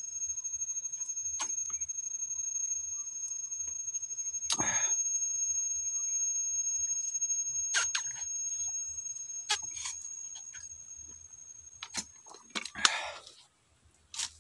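Cicadas droning in the tropical forest, a steady high-pitched pulsing whine that cuts off about twelve seconds in. Scattered clicks and knocks come from a plastic drinking bottle being handled and drunk from.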